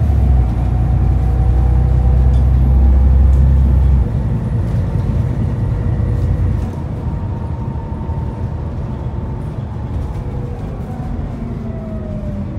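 Interior noise of an Alexander ALX400 double-decker bus on the move: the diesel engine's heavy low drone is loud, then drops at about four seconds and again a little past halfway. A fainter whine rises and falls in pitch over it.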